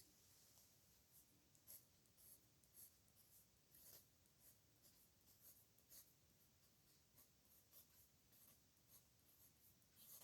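Pen writing on paper: faint, short scratchy strokes of the nib at an irregular pace as characters are written by hand.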